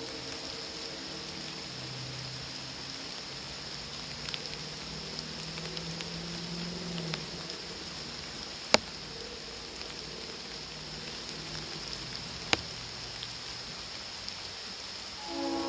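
Steady rain falling, with a faint low hum in the first half and two sharp ticks about four seconds apart. Just before the end the Leslie Supertyfon three-chime train horn starts to sound.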